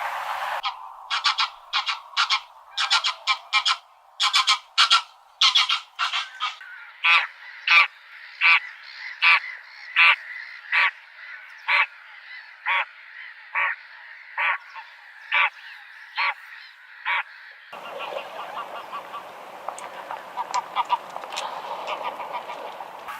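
Greylag goose honking: a long series of short, separate calls, about one or two a second. Near the end the background turns noisier and the calls grow fainter and more crowded together.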